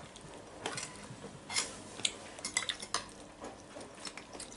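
Spoons and cutlery clinking against bowls while eating: a dozen or so short, light clinks and taps, scattered irregularly.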